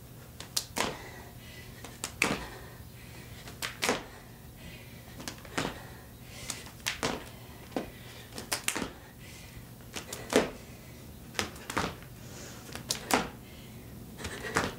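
Hambone body percussion: sharp hand slaps on the thighs and body, irregular, about one or two a second and often in quick pairs, mixed with footfalls from hopping on a wooden floor.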